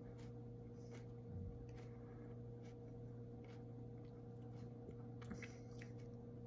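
Faint chewing of a hot chili pepper: soft, scattered mouth clicks and smacks. Underneath runs a steady low electrical hum.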